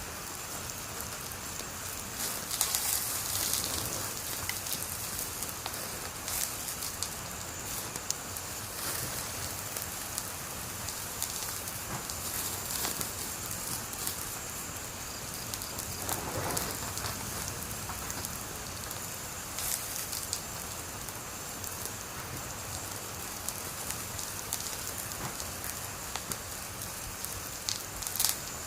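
Wood fire burning with a steady hiss and scattered crackles and pops, with a burst of louder crackling about three seconds in and again near the end.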